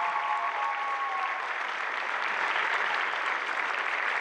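Audience applauding steadily, with a held whoop of cheering fading out about a second in.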